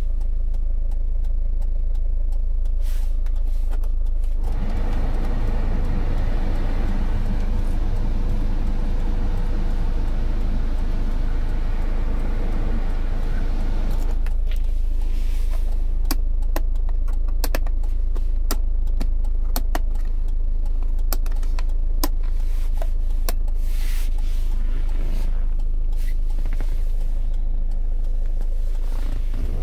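Hyundai Santa Fe turbo diesel idling with a steady low hum. From about four seconds in, the cabin heater/AC blower fan adds a steady rush of air that cuts off abruptly about ten seconds later when it is switched off. After that come a series of small clicks from the dashboard knobs and buttons.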